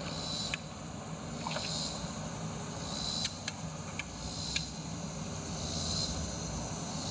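A few short, sharp clicks of a 6 mm hex key and bolt while a motorcycle fork slider is tightened, over a steady hiss that swells every second or two.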